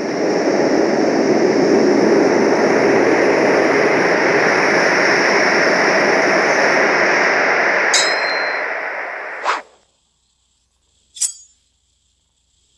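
An edited-in magic sound effect: a steady rushing rumble that swells in, holds for about nine seconds and cuts off sharply, followed by a single short clink.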